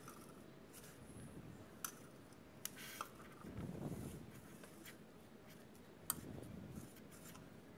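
Faint rustling and scraping of a hand mixing crumbly sattu flour with chopped onion and chilli in a steel bowl, with a few light clicks.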